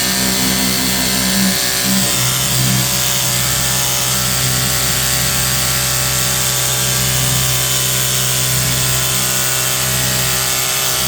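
Cordless pressure washer running steadily, its motor and pump hum over the hiss of the water spray; the hum shifts lower about two seconds in.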